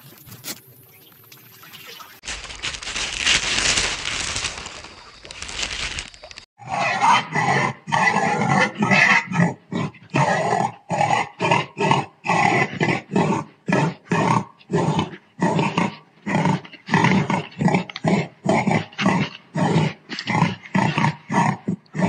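A pot-bellied pig grunting over and over, about two short grunts a second, after several seconds of steady hiss at the start.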